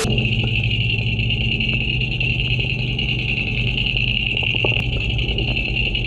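Underwater recording: a steady mechanical hum with a constant high whine under it, and a few faint knocks of the Spro Zero Minnow jerkbait's rattle as the lure is worked, about two seconds in and again around four to five seconds.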